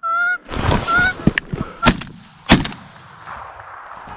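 A Canada goose honking, a rustle as the hunter sits up in the blind, then shotgun shots in quick succession, the loudest two about two-thirds of a second apart, which bring down the single goose.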